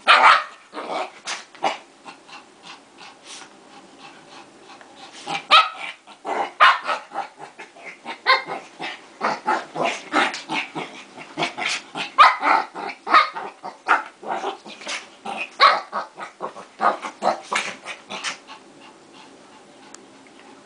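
Two small dogs fighting, growling and barking in rapid short bursts. A quieter lull comes a couple of seconds in, then a busy stretch of growls and barks that eases off near the end.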